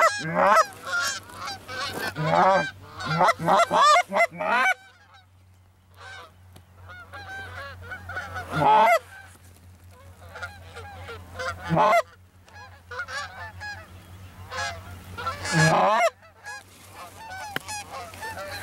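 Canada geese honking and clucking: a dense run of calls in the first four or five seconds, then scattered honks.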